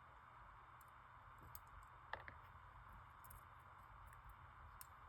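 Near silence: steady room hum with a few faint, scattered small clicks, the clearest about two seconds in.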